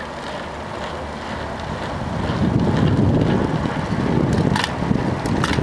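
Wind buffeting the microphone over the steady running noise of a slow-moving vehicle, growing louder about two seconds in, with a couple of faint clicks near the end.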